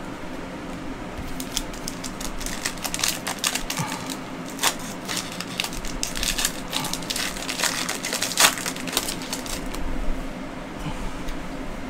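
Plastic-foil trading-card pack wrapper crinkling and tearing open in the hands, a dense run of crackles that starts about a second and a half in and dies away near the end, with one sharp crackle louder than the rest.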